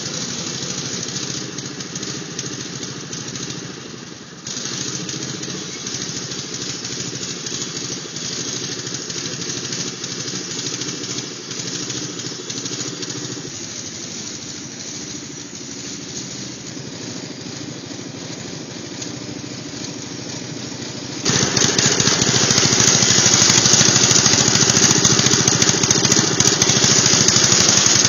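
Propane-fuelled Briggs & Stratton four-stroke engine of an old Craftsman riding mower running steadily under load while mowing. It is moderate at first, then much louder and closer near the end.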